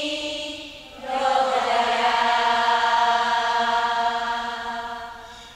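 A singing voice: a short phrase, then about a second in one long held note on a steady pitch that fades out near the end.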